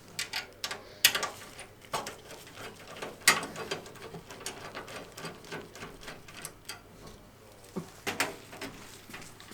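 Computer parts being handled during assembly: irregular small clicks, taps and scrapes of plastic and metal, with louder knocks about a second in, about three seconds in and near the end.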